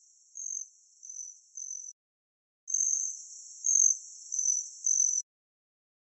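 Ruby-throated hummingbird calls: thin, very high squeaky chirps in two short runs, the notes coming roughly every half second over a faint high buzz. Each run stops abruptly.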